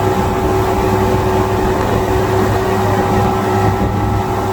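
2005 Evinrude 225 V6 two-stroke outboard engine running steadily, the engine whose knock its owner is asking to have diagnosed.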